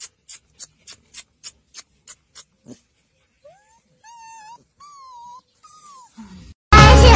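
A quick, even ticking, about four ticks a second, that stops a little under a third of the way in. Then a golden retriever puppy whimpers four times, high thin whines that rise and waver. Loud music cuts in near the end.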